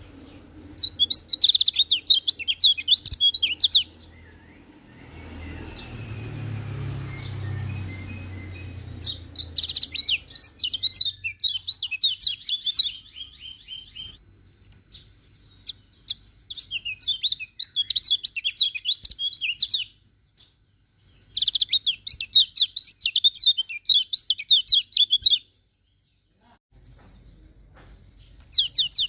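Kecial kuning (Lombok white-eye) singing: four bursts of rapid, high twittering song, each a few seconds long, with short pauses between. A low rumbling noise comes in about five seconds in and fades out about four seconds later.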